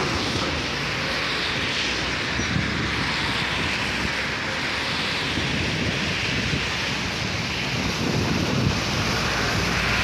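Düwag M8C articulated tram moving off and running away along the track, mixed with steady wind rumble on the microphone.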